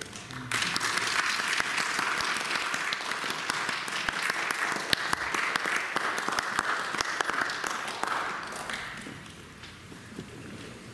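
Audience applauding, starting about half a second in and dying away after about eight seconds.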